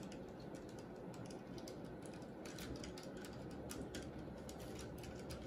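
Faint, scattered light clicks and taps over quiet room tone: small objects handled at a table, with plastic dye cups being touched and an egg being dipped.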